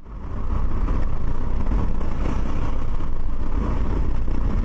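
Road and wind noise of a car driving at about 105 km/h, recorded inside the cabin by a dashcam: a steady low rumble with a hiss, swelling in over the first half second.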